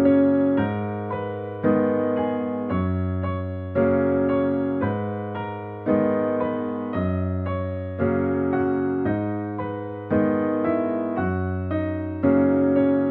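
Background music: slow piano chords, a new chord struck about every two seconds and fading away before the next.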